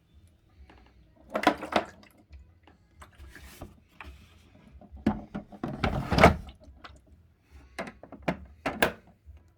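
Plastic knocks, thunks and scrapes of the electriQ CD12PRO-LE dehumidifier's water tank being handled and slid in its bay. They come in three bouts: about a second and a half in, around the middle (the loudest), and near the end.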